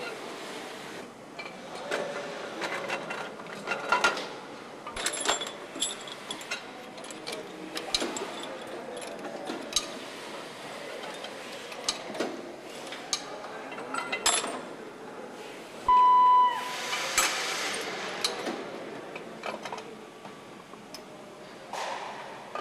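Metal clinks and knocks from Yamaha RX100 engine parts being handled and fitted on an assembly line: gears, shafts and tools against the aluminium crankcase and a press. About sixteen seconds in, a short, loud beep sounds, followed by a brief hiss.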